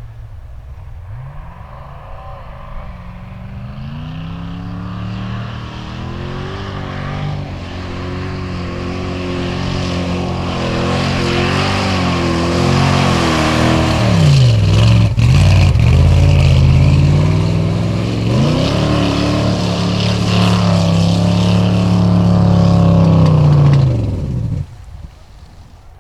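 Willys CJ5 formula offroad car's engine revving hard under load, the pitch dropping and climbing again several times and the sound growing louder as the car nears. It stops abruptly near the end.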